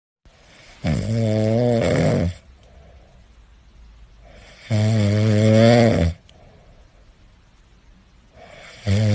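A sleeping cat snoring: three loud, drawn-out snores about four seconds apart, each about a second and a half long, with faint breaths between them.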